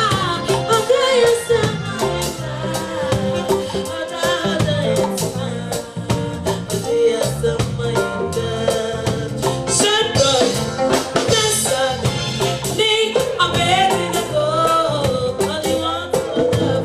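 Live gospel band music with singing: drums and bass keep a steady beat under a gliding vocal and instrumental melody.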